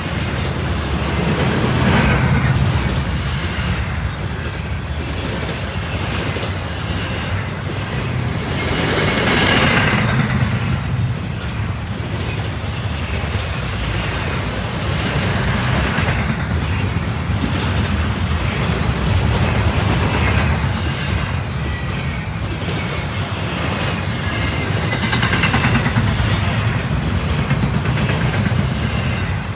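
Norfolk Southern freight train rolling past: a steady low rumble with wheel-on-rail clatter that swells and fades every few seconds as the cars go by.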